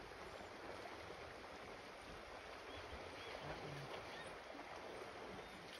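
Steady rushing noise of flowing river water over rocks, faint, with a few faint high chirps.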